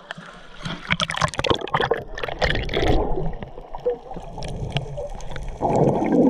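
Seawater splashing and sloshing around a handheld action camera at the surface, then the muffled gurgling rumble as the camera goes underwater about three seconds in, swelling louder near the end.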